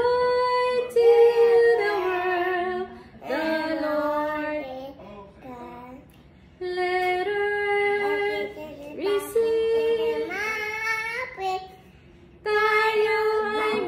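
A small girl and a woman singing a song together without accompaniment, in phrases of long held notes with short pauses between them.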